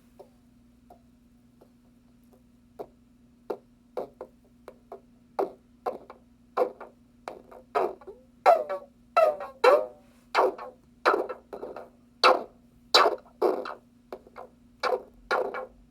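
Small electronic noise box or synthesizer producing short percussive blips and clicks in a loose, sequenced pattern over a steady low tone. The hits start sparse and quiet and become louder and more frequent a few seconds in, some with brief pitch sweeps.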